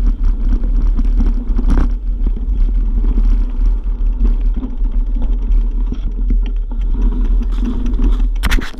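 Riding a bike over a loose, rocky gravel trail: steady wind rumble on the handlebar-mounted camera, with tyres crunching over stones and the bike rattling throughout, and a louder burst of clatter near the end.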